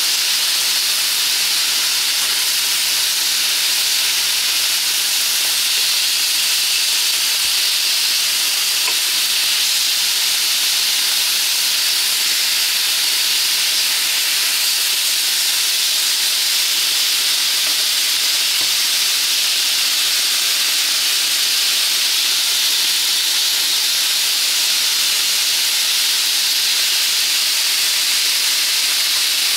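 Chicken pieces sizzling steadily in hot oil in a pan: an even, unbroken frying hiss.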